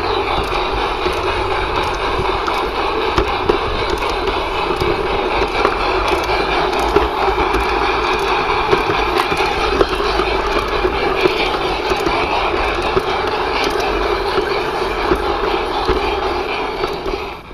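LGB G-scale garden-railway train rolling along the track, heard close up from the flat wagon being pushed by the Stainz locomotive. The wheels and the loco's small electric motor make a steady rumble and whine, with frequent small clicks.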